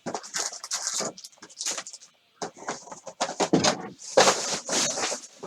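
Irregular clicks, taps and rustling from objects being handled on a tabletop, with a longer rustling stretch about four seconds in.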